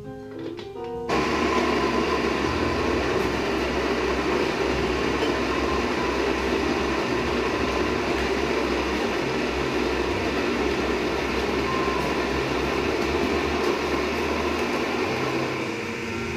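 Baratza Vario burr grinder motor grinding coffee beans, a steady, even whirr that starts about a second in and runs without a break, after a few notes of piano music.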